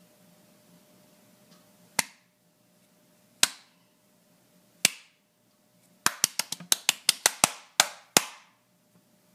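Hand claps: three single sharp claps about a second and a half apart, then a quick run of about a dozen claps.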